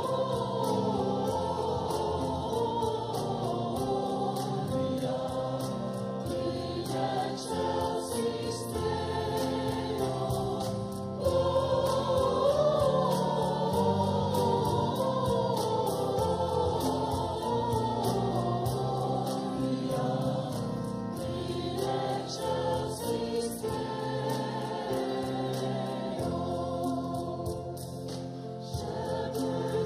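A church choir singing a Christmas carol, many voices in sustained harmony, growing a little louder about eleven seconds in.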